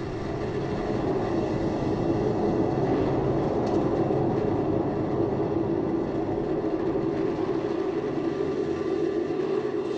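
Steady rushing roar with a steady droning hum, picked up by the onboard microphone of a Space Shuttle solid rocket booster as it falls away just after booster separation.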